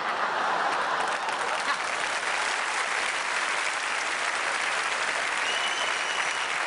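Live theatre audience applauding, a steady round of clapping in response to a punchline.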